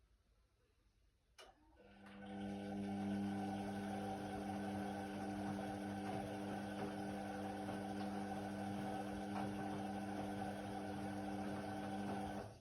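Indesit WIDL 106 washer-dryer's motor: a click, then about two seconds in the motor starts and runs with a steady hum for about ten seconds before stopping abruptly near the end.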